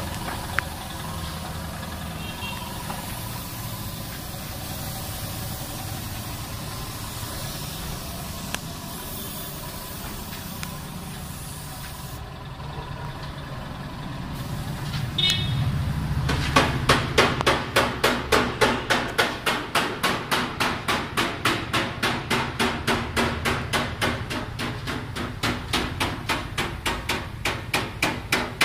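Steady low workshop hum; about halfway through, rapid, evenly spaced hammer-like knocking begins, about four blows a second, and keeps going.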